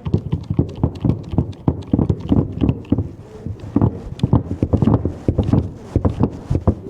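Crimping tool clunking and knocking, several times a second, as a copper lug is crimped onto a heavy 16 mm² earth cable.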